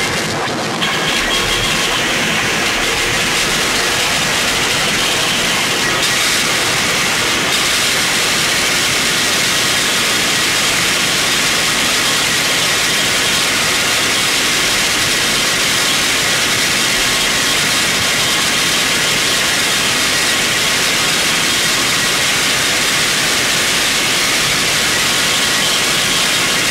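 Harsh noise music: a loud, unbroken wall of hissing, distorted static with a few faint steady tones high up in it, shifting slightly about a second in.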